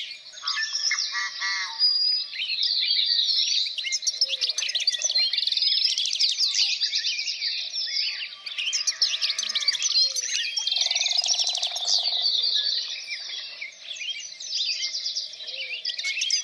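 Many birds chirping and singing at once, a dense, continuous chorus of fast, high chirps and trills, with a few lower-pitched calls mixed in.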